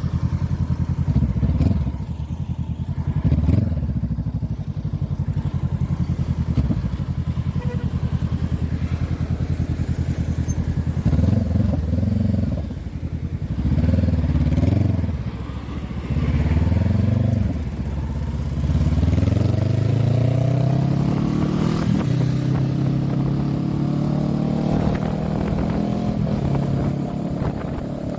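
Honda CB500F parallel-twin engine with an aftermarket exhaust, ridden. It runs at low revs with a couple of short throttle blips, then rises and drops in pitch several times around the middle. Near the end it climbs steadily in pitch under acceleration and holds at higher revs.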